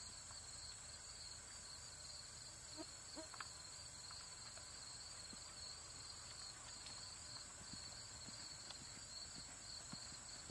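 Steady, high-pitched chorus of insects at two pitches, the lower one pulsing finely. Faint dull thuds of a horse's hooves on the dirt arena come in during the second half.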